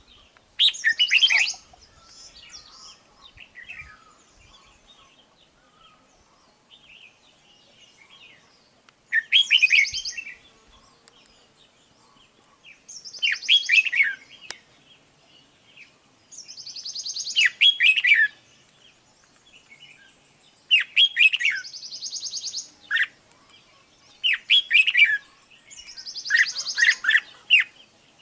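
Red-whiskered bulbul singing: seven short phrases, most of them three to four seconds apart. Each phrase is a quick run of chirpy notes with a buzzy part.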